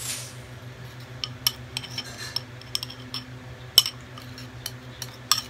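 A metal spoon clinking irregularly against a bowl as instant coffee, sugar and hot water are beaten by hand for whipped dalgona coffee; the sharpest clink comes about four seconds in.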